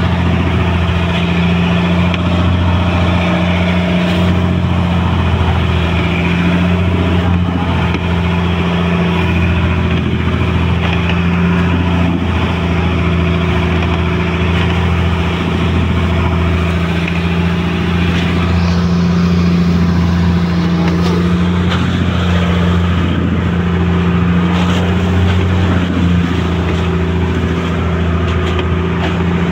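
Boat engine running steadily at an even speed, a constant low drone with no change in pitch.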